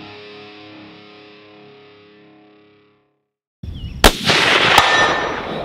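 Guitar outro music fading out, then, after a brief gap, a big-bore rifle shot with a long rolling rumble, and a second sharp strike under a second later as the bullet hits the steel gong target.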